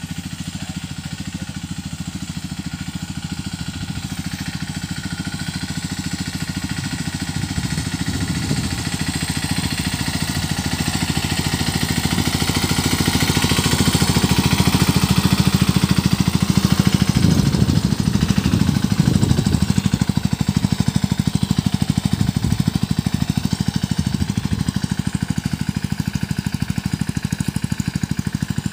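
10.5 HP Sanedo three-wheeled mini tractor's engine running under load as it pulls a cultivator through the crop rows, with a rapid, even beat. It grows louder as the tractor comes close about halfway through, then eases slightly as it moves away.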